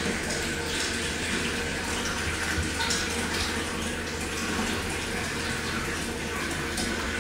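Steady rush of running water, like a tap filling a bathtub.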